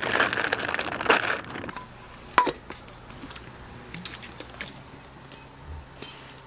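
Plastic potato-chip bag crinkling as it is torn open and handled, then a single sharp clink with a short ring about two and a half seconds in. Near the end come light crackling clicks from a plastic bottle cap being twisted off.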